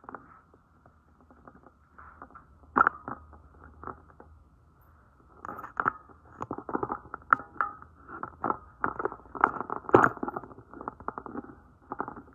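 Handling noise from a phone being moved and set in place: scattered clicks, knocks and rubbing on the microphone. It gets much busier about halfway through.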